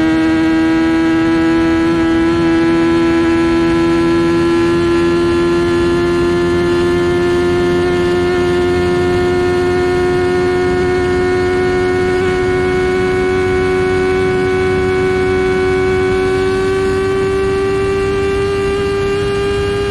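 Kawasaki ZX-10R's inline-four engine through an SC Project exhaust, pulling steadily with its pitch climbing slowly and evenly as the bike gathers speed, over a steady rush of noise.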